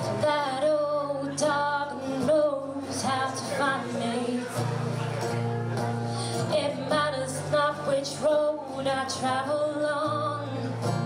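Live acoustic song: a woman singing over a strummed acoustic guitar.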